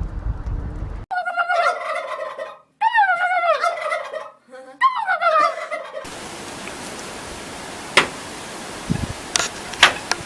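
Tom turkey gobbling three times, each a rapid warbling call that falls in pitch. Afterwards a steady background hiss with a few sharp clicks.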